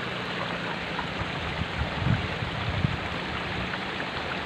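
Steady rushing of water flowing along a shallow ditch, with a few soft low bumps about two seconds in.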